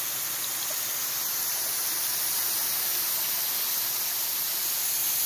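Steady hiss of water spraying as a fine mist from a garden hose sprayer watering a young catalpa tree.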